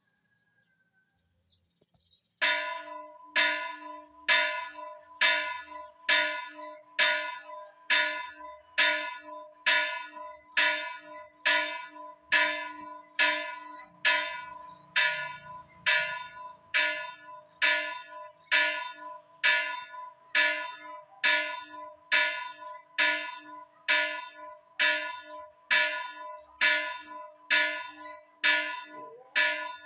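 Church bell tolled in quick, steady strokes, a little under one a second, starting about two seconds in. Each stroke rings on into the next.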